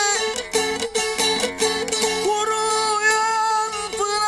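Turkish folk song (türkü) playing: a plucked string instrument with a melody of long, held notes.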